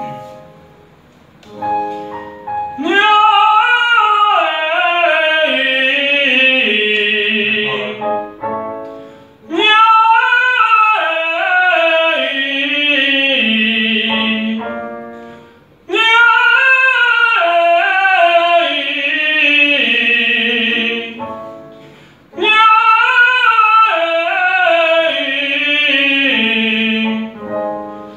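A man singing a vocal scale exercise to piano accompaniment: four sung phrases, each leaping up and then stepping down a scale, with short piano chords giving the pitch in the gaps before each repetition.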